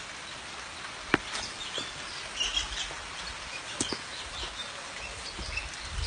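Small birds chirping in short calls over the steady rush of a waterfall, with a single sharp click about a second in.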